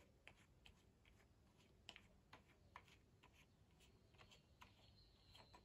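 Near silence with faint, irregular clicks and taps of an aluminium camera tripod being handled as its locks are undone and its parts adjusted.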